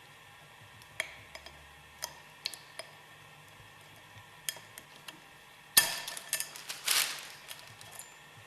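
Metal separator parts and hand tools clinking and tapping against each other: scattered light clicks, then a louder knock about six seconds in and a short clatter after it.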